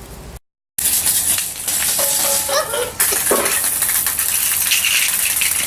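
A continuous shaking, rattling noise, after a brief gap in the sound near the start.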